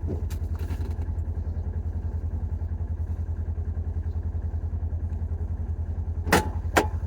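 A small vehicle's engine running steadily with a low, evenly pulsing drone while the vehicle is driven along. Two sharp knocks come near the end.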